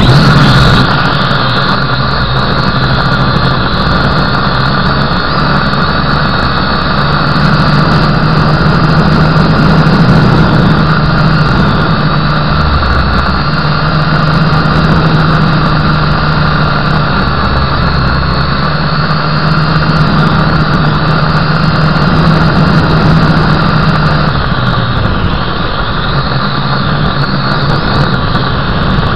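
Motor and rotors of a radio-controlled model helicopter running steadily in flight, heard close up from on board: a steady high whine over a low hum that changes little.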